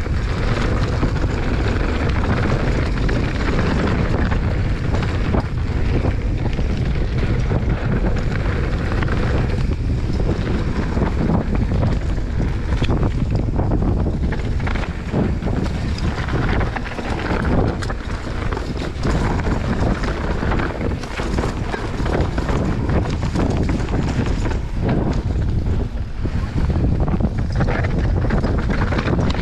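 Wind buffeting the microphone over the tyre noise and rattle of a mountain bike riding a rough dirt trail, with frequent small knocks as it goes over bumps.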